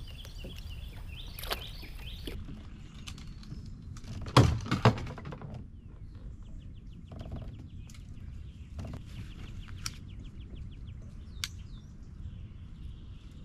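Small birds chirping in quick repeated trills, over a steady low background hiss. A couple of loud knocks sound about four and a half seconds in.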